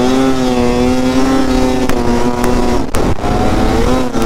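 Arctic Cat ZR 6000 snowmobile's 600 cc two-stroke twin running at steady high revs while the sled crosses open snow. The pitch climbs a little at first, holds, and dips briefly about three seconds in. A few sharp crackles come from the helmet microphone.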